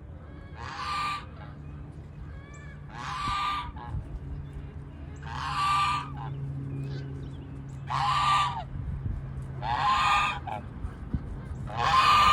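A farm bird calling loudly six times, one honking squawk about every two seconds, over a steady low hum.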